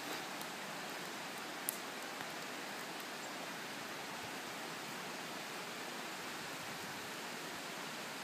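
Steady, even hiss of outdoor background noise, with one faint click a little under two seconds in.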